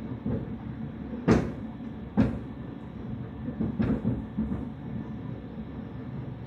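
imes-icore 450i dental milling machine running with a steady rumble, broken by sharp knocks: a loud one about a second in, a second about a second later, and a weaker one near the end of the fourth second. This is the strong abnormal noise the owner reports on the last milling job.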